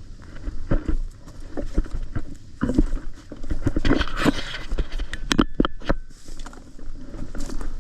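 Footsteps of a player walking through the field, with gear and clothing rustling and knocking at uneven spacing. A louder rustling swell comes about four seconds in, then a quick cluster of sharp clicks.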